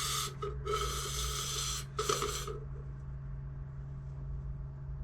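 Aerosol can of Touch 'n Foam window and door foam sealant spraying through its trigger applicator in three hissing bursts, the longest about a second and a half, with the can at very low pressure. A steady low hum sits under it.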